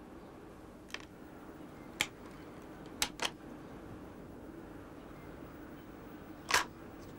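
Sharp mechanical clicks and snaps of an air pistol being handled, cocked and loaded: a faint click about a second in, two sharp clicks, a quick pair of clicks about three seconds in, and a louder snap near the end.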